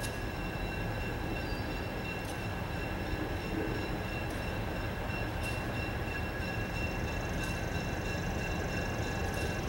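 Diesel freight locomotives running slowly toward the listener: a steady low engine rumble, with a thin steady high tone and a few faint clicks over it.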